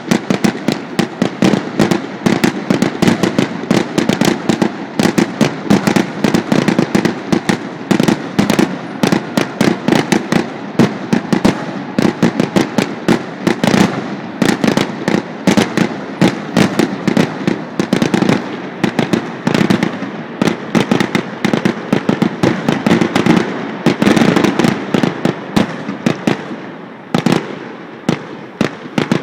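Fireworks finale: a rapid, continuous barrage of aerial shell bursts, several bangs a second, thinning out in the last few seconds.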